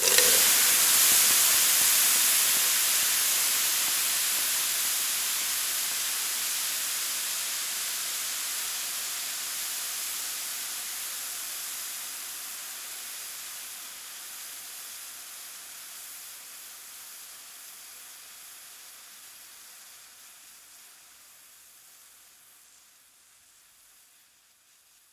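Water splashed onto a hot grill: a sudden splash, then a hiss of steam that starts strong and dies away slowly and evenly until it is almost gone near the end.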